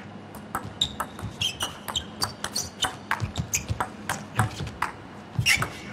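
Table tennis rally: a steady run of sharp clicks as the plastic ball strikes the rackets and the table, with a few short shoe squeaks on the court floor.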